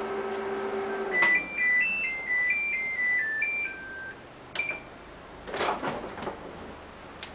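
Microwave oven humming as it runs, cutting off about a second in, then playing a short electronic tune of beeps that signals the cooking is done. A few clicks and a clunk follow.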